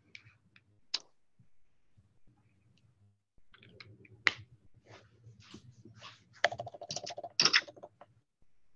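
Irregular clicking of keys being pressed, sparse at first and coming in a quicker run about six to eight seconds in, over a faint low hum from an open microphone.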